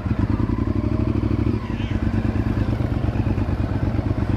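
Honda sport bike engine running steadily, without revving, as the motorcycle rolls slowly.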